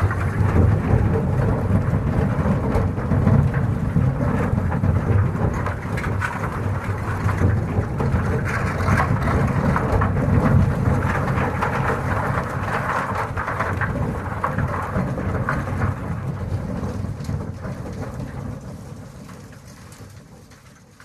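Cave-in sound effect: rock and debris collapsing in a steady low rumble with a dense crackling clatter, fading out over the last few seconds.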